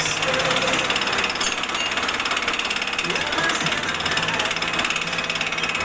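Vertical milling machine counterboring a bore in a metal workpiece: the gear-driven spindle runs while the cutter chatters steadily in the cut with a fast, even rattle.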